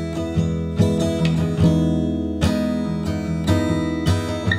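Background music: an acoustic guitar strumming chords, a new strum every half second to a second, with no singing yet.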